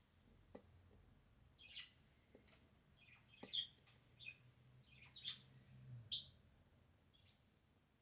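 Faint bird chirps, about a dozen short ones, some sliding downward, with a few faint sharp clicks between them.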